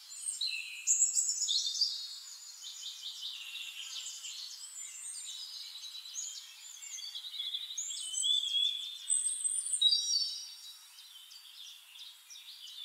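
Several birds singing at once, a busy mix of chirps, fast trills and short whistles, loudest about a second in and again around eight to ten seconds in.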